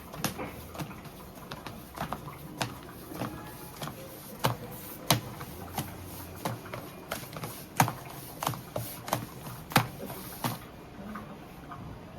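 Irregular sharp clicks and knocks, two or three a second, with a few louder ones, over a low background murmur; a faint hiss stops about ten seconds in.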